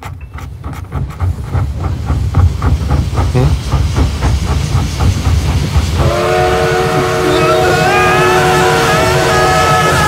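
Designed sound effect: a run of rhythmic chugging strokes that quickens over the first six seconds. Then a loud chord of several held, whistle-like tones sets in, with higher tones wavering above it.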